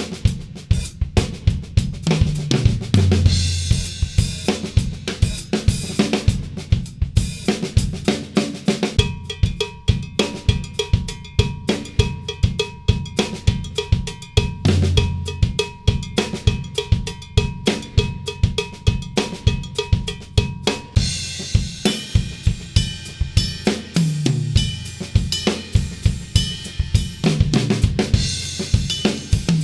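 Acoustic drum kit played in a fast solo: dense snare and bass drum strokes with cymbals, and several fills running down the toms from high to low pitch. A steady high ringing tone sounds under the middle part.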